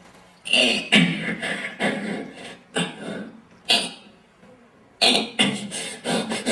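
A man making vocal sound effects with his mouth: a string of short, loud bursts of hissing and voiced noises, with a brief pause about four seconds in.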